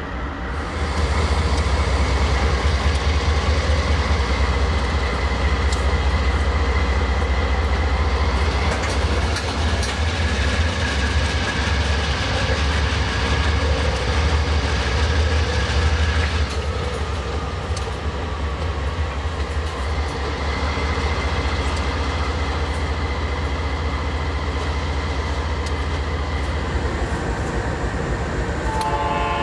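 Diesel-electric freight locomotives hauling grain hopper wagons pass close by, their engines making a steady deep rumble that eases off about halfway through as the wagons roll past with clicking wheels. Near the end a train horn starts to sound.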